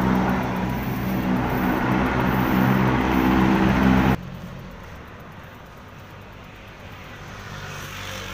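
Road traffic with a motor vehicle's engine running steadily close by. It cuts off suddenly about four seconds in, leaving a faint, even street hum.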